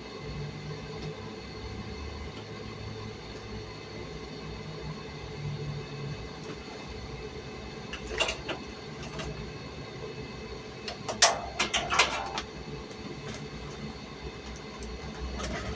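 A small electric motor hums steadily, most likely the washing machine's drain pump running on test, with a low uneven rumble under it. Sharp clicks and knocks break in about halfway through and again a few seconds later.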